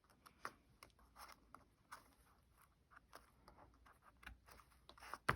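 Faint, irregular scratches, taps and small clicks of card pieces being handled, with one sharper click near the end.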